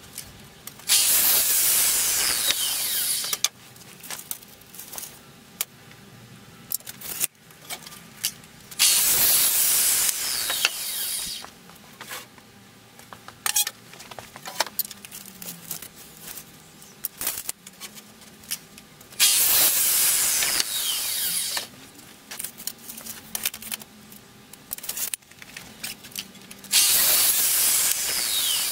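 Miter saw making four crosscuts through a wooden board: each is a loud two-to-three-second run of motor and blade through the wood, ending in a falling whine as the blade spins down. Between cuts there are quieter clicks and knocks as the board is moved.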